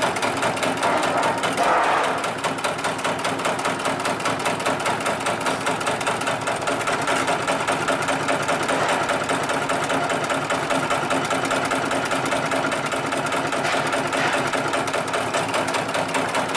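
Hightex 733 extra-heavy-duty single-needle sewing machine, with a long oscillating shuttle, stitching through several layers of thick polyester webbing. It runs steadily with an even, rapid stitch rhythm over a motor hum.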